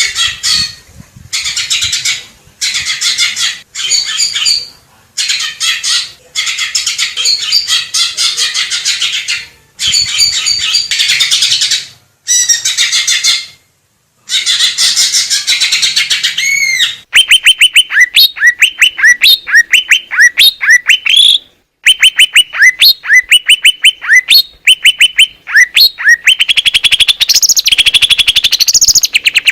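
Green leafbird (cucak ijo) singing: bursts of rapid, varied chattering, broken by short pauses. Past the middle the song changes to a fast, even series of repeated ringing notes.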